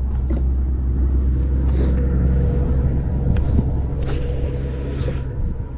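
Electric trolling motor running: a steady low hum with a faint steady whine over it, the whine fading out near the end.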